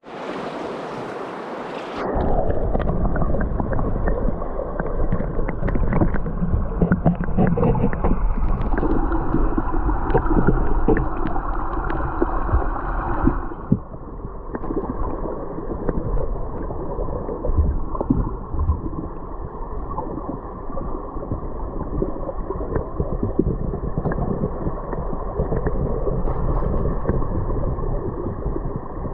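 Flowing river water heard first in the open air as a hiss. From about two seconds in it is muffled, as heard from under the surface: a steady rushing gurgle with many small clicks and knocks, duller still from about halfway through.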